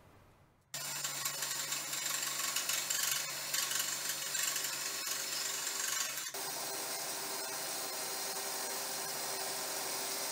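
Cordless drill boring through the steel engine guard of a zero-turn mower and the square steel tubing clamped to it, the bit grinding steadily through tough metal. It stops briefly about six seconds in, then runs on evenly.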